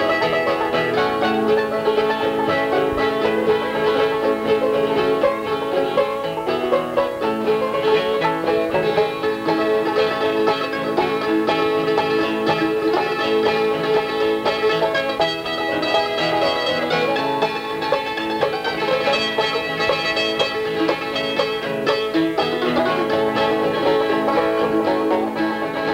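Instrumental background music playing steadily.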